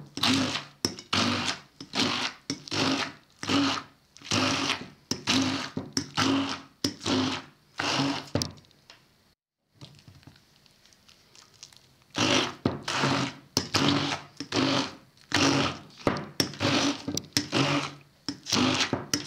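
Stick blender run in short pulses through whole cooked chickpeas, its motor whirring in repeated bursts about one or two a second, with a pause of a few seconds near the middle.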